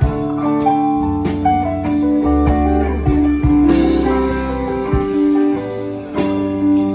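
Live rock band playing an instrumental passage: electric guitar lines over electric bass, keyboards and a drum kit, with cymbal hits about once a second.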